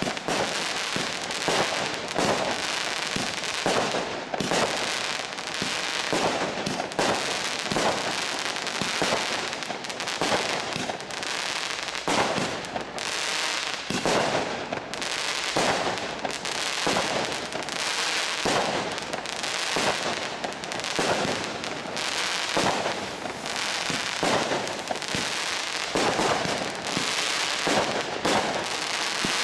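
Bad Boy Bunker Buster consumer firework barrage, a cake of 20, 25 and 30 mm tubes, firing shot after shot in rapid, unbroken succession. Sharp launch and burst reports come over a constant hiss of crackling stars.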